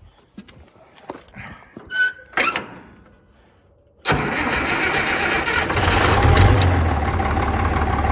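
Faint scattered clicks and knocks, then about four seconds in a loud, steady machine noise cuts in abruptly, with a low hum that grows stronger about two seconds later.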